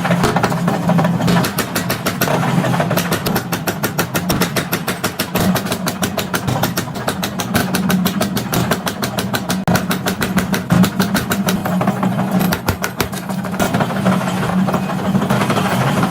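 Workshop machinery running with a steady motor hum. A fast, even clatter of knocks runs over it from about a second in and stops near the end.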